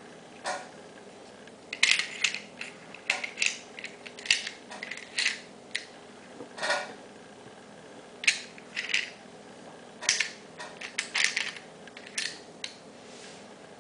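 Metal parts of an airgun field target's aluminium mechanism clicking and clacking as it is turned and worked by hand: irregular sharp clicks, sometimes several in quick succession, with short pauses between them.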